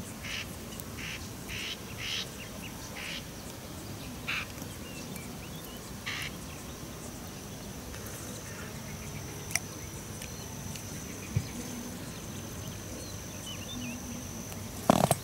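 Ducks quacking, a string of short quacks through the first six seconds, then a sharp knock just before the end.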